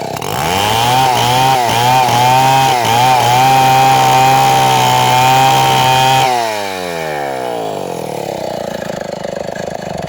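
Chainsaw engine revved up to full throttle and held there for about six seconds with a few brief dips, then dropping back to a steady idle.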